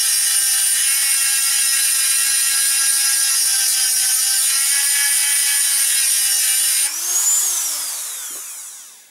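High-speed rotary tool with a green grinding stone grinding the edge of a steel knife blank held in a vise, a steady high whine. About seven seconds in it comes off the steel, the pitch rises briefly, then falls away as the tool spins down to a stop.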